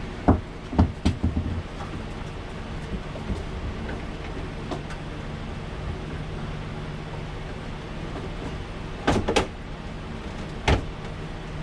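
Hard knocks and clunks of a part being pushed and worked into place during a mini split install. A cluster comes in the first second and a half, a double knock about nine seconds in and one more near the end, all over a steady low hum.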